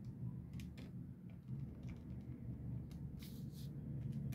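Faint clicks of a Casio FC-100V calculator's keys being pressed as an expression is edited, with a brief rustle a little past three seconds, over a low room hum.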